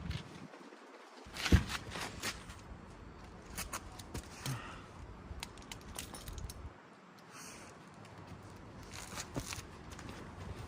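Footsteps and scattered clicks and knocks of someone handling gear while getting a jack out, with one sharper knock about a second and a half in.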